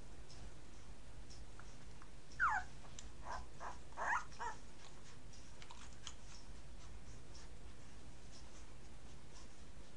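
Nine-day-old Entlebucher Mountain Dog puppies squeaking: one falling squeal about two and a half seconds in, then a quick run of short squeaks, over a steady low hum.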